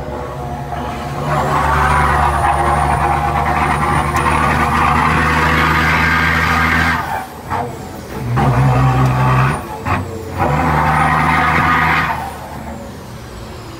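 Truck air horn sounding three steady blasts. The first lasts about six seconds, then come two shorter ones of about a second and a half each, the middle one lower in pitch.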